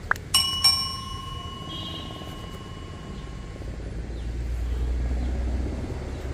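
Subscribe-button sound effect: two quick clicks, then a bell chime struck twice that rings on and fades over about three seconds. A low rumble swells and dies away in the second half.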